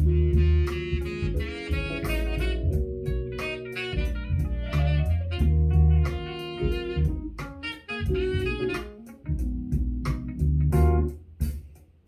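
Jazz instrumental music with a steady drum beat and a strong bass line, played through a 1More S1001BT two-way Bluetooth speaker set facing up at 50% volume.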